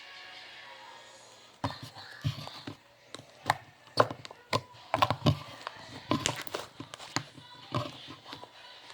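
A string of irregular sharp clicks and taps from small objects being handled, with faint music during the first second or so.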